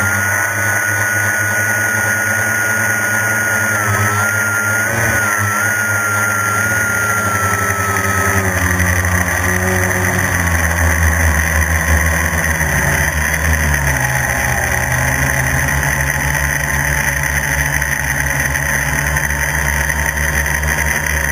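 Quadcopter's electric motors and propellers buzzing in flight, with a high whine that holds steady, then slowly drops in pitch through the middle and rises a little near the end.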